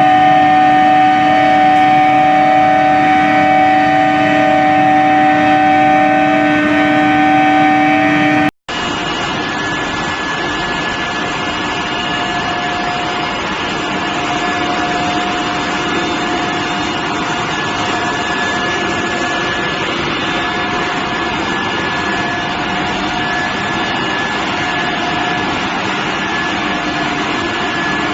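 Billet induction heating furnace running: a loud, steady electrical hum made of several fixed tones. About eight and a half seconds in it drops out for an instant, then continues as a noisier steady machine hum with fainter tones.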